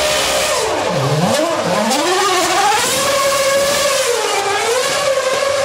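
McLaren MP4-23 Formula One car's Mercedes 2.4-litre V8 revving hard as it drives past. Its pitch dives sharply about a second in, then climbs again and rises and falls through several gear changes.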